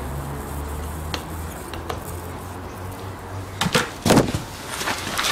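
Light clicks, then a short clatter of sharp knocks about four seconds in, as a tyre-plug insertion tool is pulled out of a scooter tyre's tread and handled. A low hum runs underneath.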